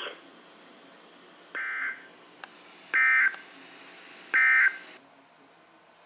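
Three short data bursts of the Emergency Alert System end-of-message code (SAME 'NNNN') from a weather alert radio's speaker, about a second and a half apart, the first fainter than the other two. They mark the end of the severe thunderstorm warning broadcast.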